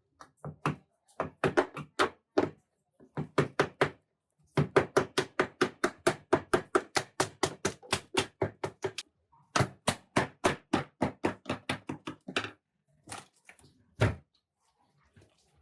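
Sharp, hard knocks in quick runs of about four a second, with short pauses between runs and a single heavy knock near the end.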